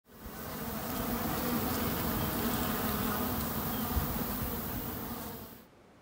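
Many honeybees buzzing together in a dense, steady hum that fades in at the start and cuts off shortly before the end. There is a brief low knock about four seconds in.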